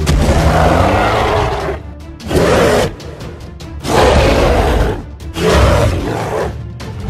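Creature roar and growl sound effects, about four loud rough bursts in a row, over background music.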